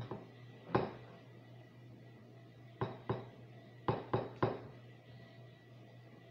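Rubber spatula striking and scraping against a cut-glass bowl while mixing pancake batter: a string of sharp clinks, three in quick succession about four seconds in.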